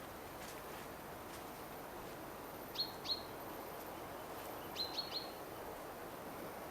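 Short, sharp bird chirps, two in quick succession about three seconds in and three more close together near five seconds, over a steady outdoor background hiss.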